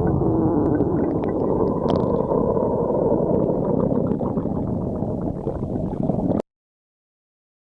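A person's stomach growling, a continuous low gurgling rumble that stops dead about six seconds in.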